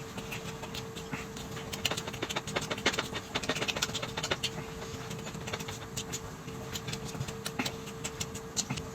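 Close-up eating sounds: irregular chewing and mouth smacking with small clicks, over a steady low hum.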